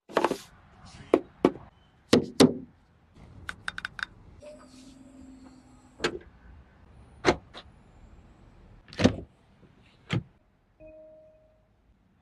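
A Mercedes-Benz GLC 260 L's doors and controls being worked: a string of sharp clicks and solid thunks, some in quick pairs, with a short steady motor hum about four seconds in.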